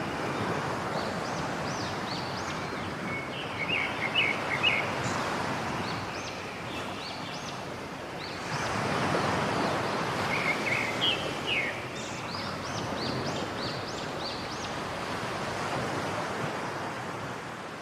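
Steady rush of falling water, a waterfall, with small birds chirping at intervals over it, in two louder flurries of quick chirps, one a few seconds in and one past the middle.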